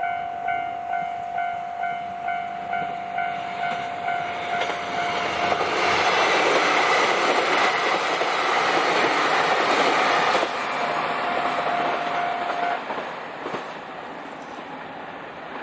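A Japanese level-crossing alarm bell dinging about twice a second, then a KiHa 261 series diesel limited-express train passing loudly through the crossing, its wheels clattering over the rails for about five seconds. The crossing bell stops shortly after the train has gone.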